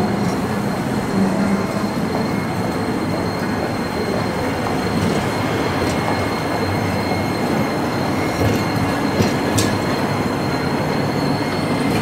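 Toei 8800-series streetcar running past at low speed on street track: a steady rumble of wheels and motors, with a thin, steady high tone from the wheels on the rails. A few sharp clicks come in the second half.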